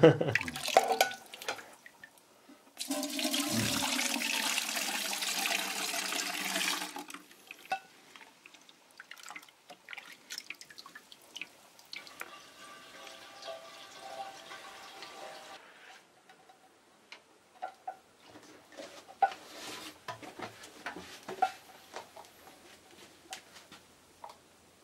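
Home-brewed beer poured through a strainer and funnel into a keg: a loud, steady pour for about four seconds, then quieter trickling and dribbling with scattered clinks of the pan and strainer.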